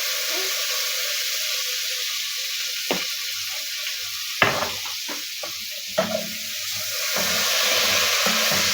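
Meat sizzling and frying in a pot with soy sauce being stirred in, a steady hiss, broken by three sharp knocks about three, four and a half, and six seconds in.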